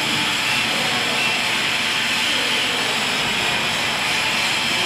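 A BJG1390 100 W laser cutting machine running, giving a steady, even hiss and hum with no change in level.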